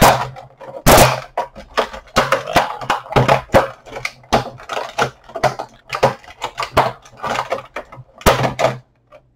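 Stiff plastic toy packaging crackling, snapping and rustling as it is pulled and twisted apart to free an action figure, with two loudest sharp cracks, one about a second in and one near the end.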